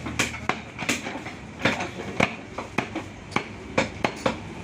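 Butcher's cleaver chopping beef on a wooden block: a quick run of sharp chops, a little under three a second at uneven spacing, over market background noise.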